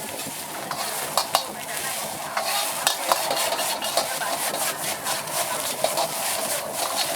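Food sizzling steadily in a hot wok as it is stir-fried, with irregular sharp clinks and scrapes from the spatula striking the wok.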